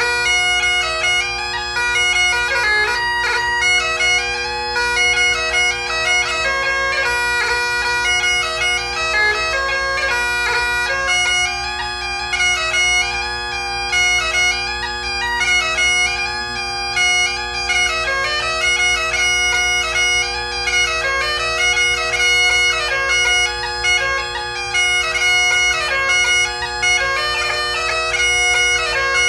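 Great Highland bagpipe played solo: steady drones sounding under a quick-moving chanter melody.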